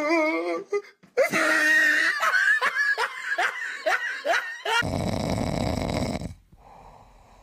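A person laughing, first a wavering drawn-out laugh, then a quick run of short ha-ha bursts about three a second. Just under five seconds in it cuts abruptly to a steady rushing noise that fades out about a second before the end.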